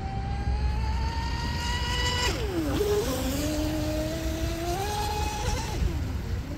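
RC speedboat's 3674 2200 kV brushless motor and propeller whining at high speed, the pitch climbing, then dropping sharply about two seconds in before climbing again and falling off near the end. A low rumble runs underneath.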